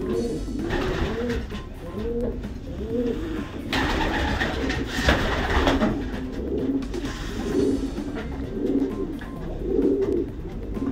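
Several racing pigeons cooing together, their overlapping coos repeating throughout. A rustling noise rises over them briefly about a second in, and again for about two seconds from around four seconds in.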